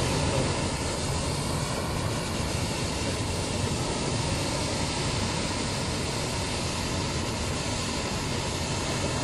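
Steady, even mechanical roar from hot air balloon launch equipment, running without a break.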